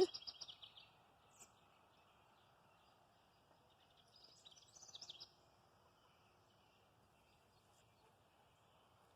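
Faint high bird chirps, two short runs: one in the first second and another about four seconds in, over faint outdoor background noise.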